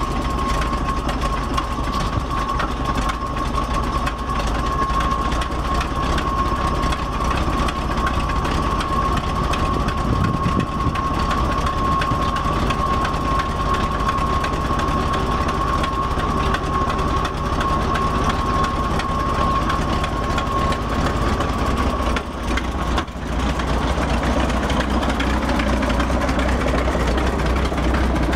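1968 Chevrolet C70 grain truck running while its dump hoist raises the grain box, with a steady high whine over the engine that stops about 22 seconds in.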